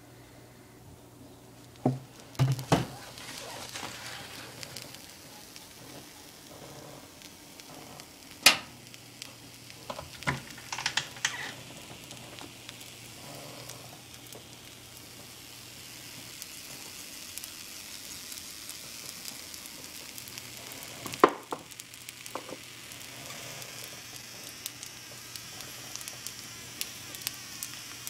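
An egg frying in oil in an old flat black iron griddle pan: a steady sizzle that builds up a few seconds in and keeps going. Sharp knocks and clicks come a few times over it, the loudest early on and one about two-thirds of the way through.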